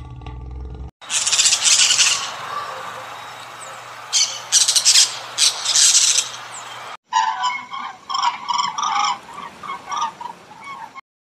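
A lion's roar trails off in the first second. Then a toucan gives harsh, high squawks in three bursts, and after a break a great egret gives a quick run of short, repeated croaking calls.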